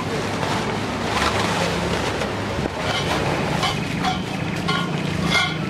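Rustling of plastic wrapping and a foil camping mat as gear is unpacked, over a steady wind-like hiss, with a few light clicks and knocks from a metal folding table frame being opened in the second half.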